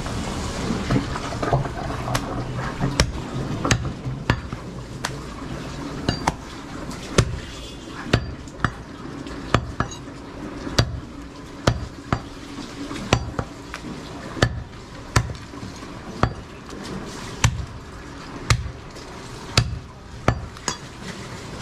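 Butcher's cleaver chopping bone-in goat meat on a round wooden chopping block: sharp knocks, about one a second, over steady background noise.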